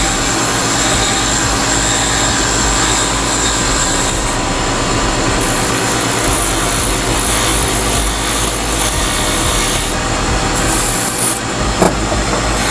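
Wood lathe running while a small metal file is held with gentle pressure against a spinning wooden chess piece: a steady scraping rasp over the lathe's even hum, with a brief tap near the end.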